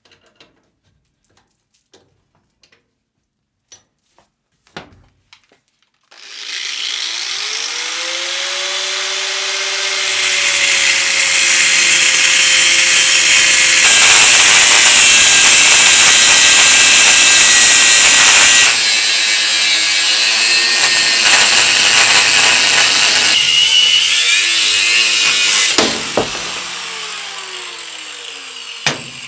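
After a few seconds of small clicks, an electric power tool spins up with a rising whine. It bites into the work about four seconds later, cutting or grinding loudly and unevenly, then winds down with a falling whine near the end.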